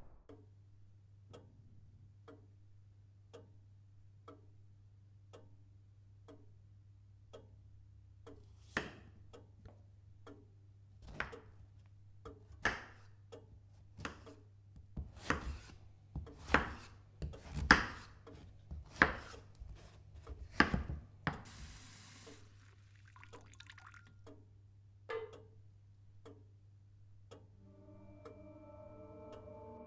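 Film soundtrack sound design: soft, even ticks about one and a half a second over a low steady hum. A run of louder, irregular knocks comes in the middle, then a brief hiss, and sustained ambient music tones enter near the end.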